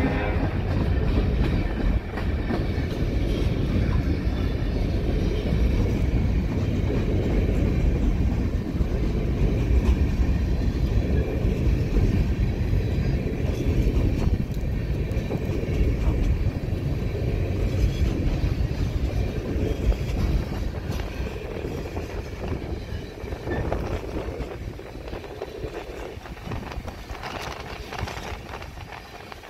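Coal train's hopper cars rolling past, a steady rumble and clatter of steel wheels on the rails, which grows quieter over the last several seconds.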